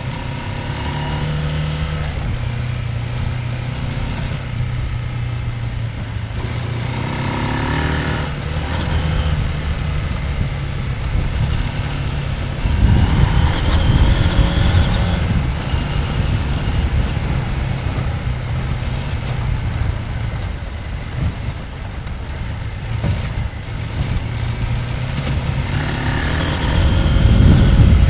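Husqvarna Norden 901's parallel-twin engine running at low revs off-road, the revs rising in short surges of throttle several times. The loudest surges, about halfway through and near the end, come with heavy rumbling noise.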